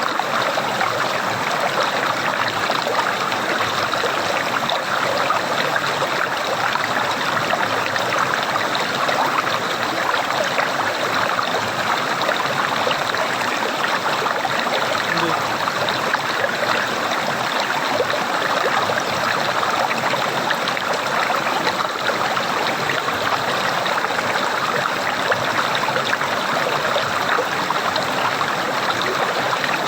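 Flowing water gurgling steadily, an even, unbroken rush of water without pauses or changes.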